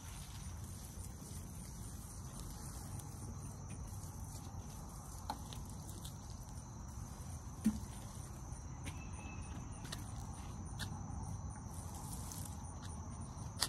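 Insects chirping in a steady high trill with an even pulsing, over a low steady outdoor rumble, with a few faint taps.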